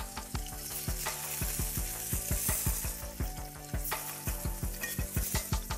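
Pieces of beef searing in a hot oiled pan, a steady sizzle with many small crackles and clicks, as a spatula turns the pieces.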